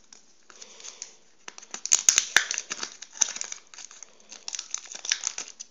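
A sticker packet being torn open and crinkled by hand: an uneven run of rustles and sharp crackles, loudest about two seconds in.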